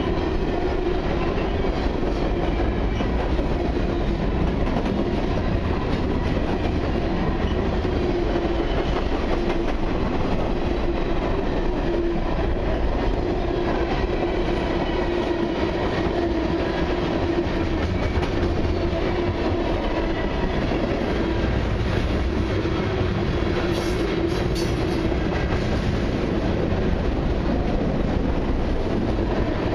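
Cars of a mixed freight train rolling steadily past, steel wheels on rail: a constant rumble with a steady hum running under it.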